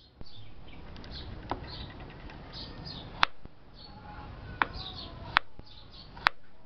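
Kitchen knife cutting a peeled root on a chopping board: five sharp knocks spaced about a second apart, over a low steady rumble, with faint high chirping throughout.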